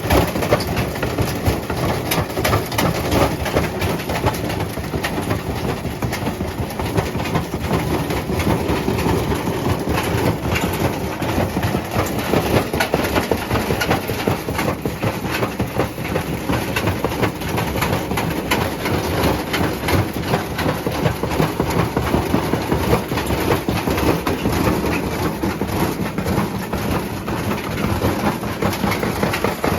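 Servis washing machine running with a brick in its drum: a steady, dense clatter of rapid knocks as the drum bangs around inside the casing.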